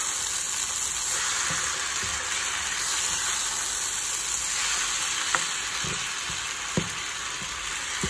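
Sweet potato leaves and chopped vegetables sizzling steadily as they fry in a nonstick pan, stirred with a silicone spatula that knocks lightly against the pan a few times in the second half.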